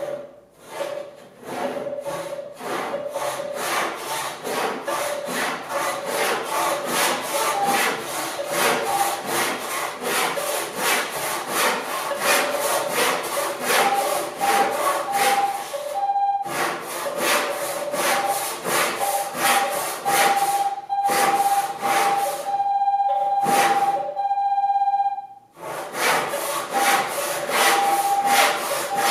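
Lie-Nielsen tapered crosscut hand saw cutting through a wooden board in quick, even back-and-forth strokes, with short pauses about halfway through and near the end. A pitched tone comes and goes over the sawing and is held steadily for a couple of seconds in the last pause.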